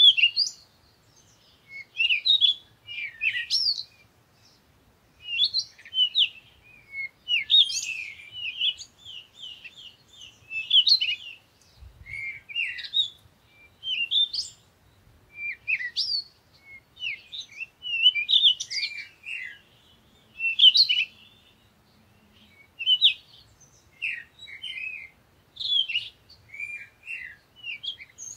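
Small birds chirping and twittering: short, quick, high calls in bursts that follow one another every second or two.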